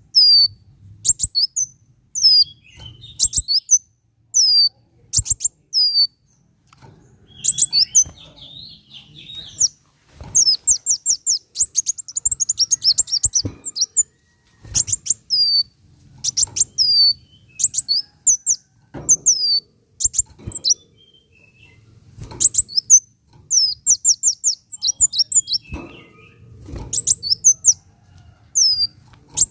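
Kolibri wulung sunbird singing: bursts of rapid, very high chips and short down-slurred whistles, repeating every second or two, with a few longer fast chattering runs.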